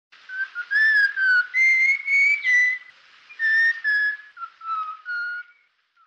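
Clear whistled notes, about a dozen in two phrases with a short pause between them, each note held briefly and gliding a little in pitch.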